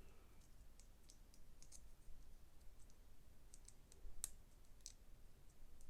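Faint, scattered clicks of plastic Lego Technic pieces being handled and fitted together, with a sharper click about four seconds in.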